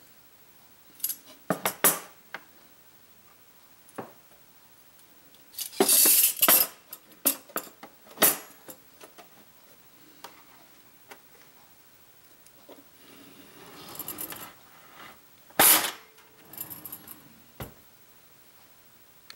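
Metal cutlery and serving spoons clinking and rattling in wire mesh baskets as they are set into a kitchen drawer, in several separate clatters. There is a scraping slide a little past the middle and a low knock near the end as the drawer is shut.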